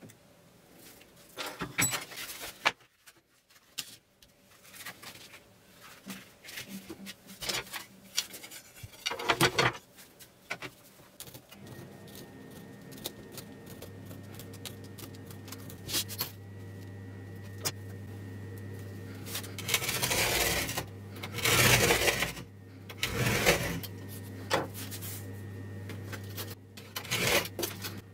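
Handling noises of sandpaper, a steel ruler and a pencil on a hardboard bench: scattered rustles, taps and scrapes, with a run of louder scraping about two-thirds of the way through. A steady low hum sets in about twelve seconds in.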